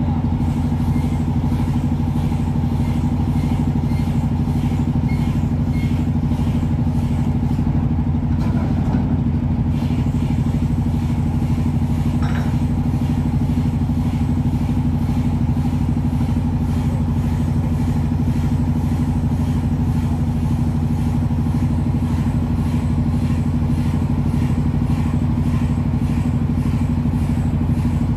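Marine diesel engine running steadily at constant speed, a loud, even low drone.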